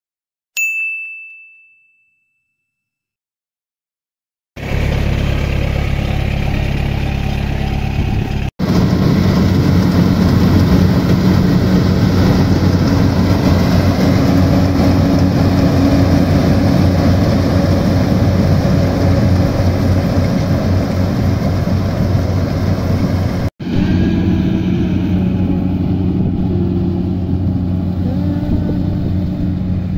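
A single notification-bell ding just after the start, then after a few seconds of silence a Yanmar AW70V combine harvester's diesel engine running steadily under load as it cuts rice, broken twice by brief cuts.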